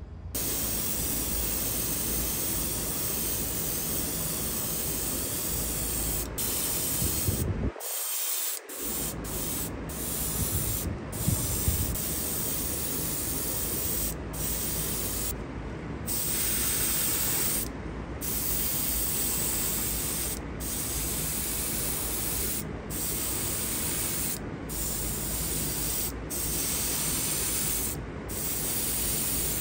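Gravity-feed airbrush spraying paint: a steady hiss of air, broken by brief pauses every second or two as the trigger is let off, over a steady low hum.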